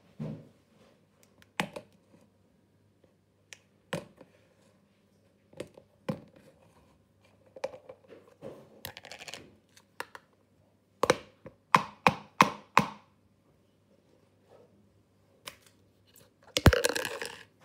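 Plastic clicks and knocks of a clip-lock plastic food tub being handled, its latches flipped and lid lifted off, with a quick run of four louder clicks past the middle and a short scuffling noise near the end.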